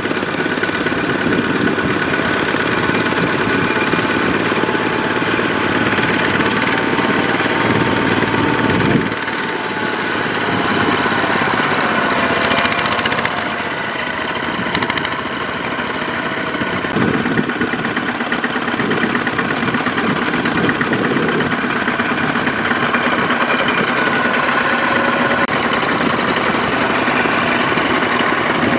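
Single-cylinder diesel engine of a two-wheel walking tractor running steadily with a fast diesel knock, working under load as it hauls a loaded trailer through mud. Its level and tone shift about nine and seventeen seconds in.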